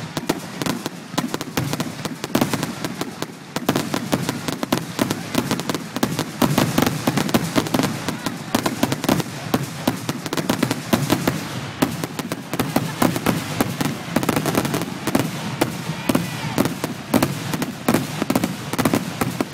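Fireworks going off in a dense barrage: rapid, overlapping bangs and crackling with hardly a gap, over a low rumble.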